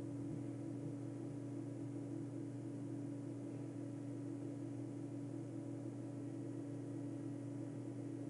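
Faint steady low hum, even throughout, with no other sounds.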